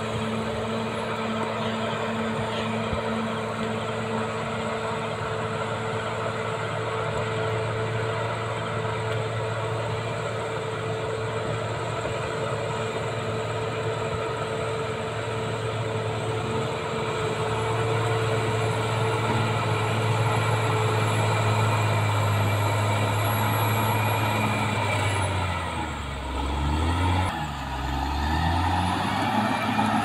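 Caterpillar D6R XL bulldozer's diesel engine running steadily under load as the dozer pushes soil, growing a little louder about halfway through. Near the end the engine speed drops and picks up again twice.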